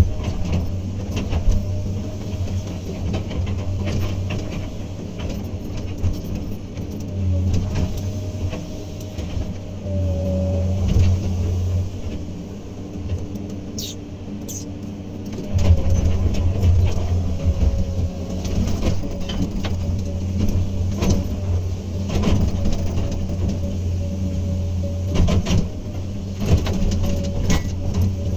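Hydraulic excavator's diesel engine running steadily under working load, with a faint whine coming and going and scattered clanks and knocks. The engine gets louder about halfway through.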